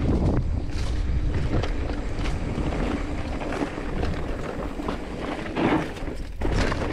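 Mountain bike riding over a rough, rocky trail: steady wind rumble on the microphone with frequent knocks and rattles from the tyres and bike over stones.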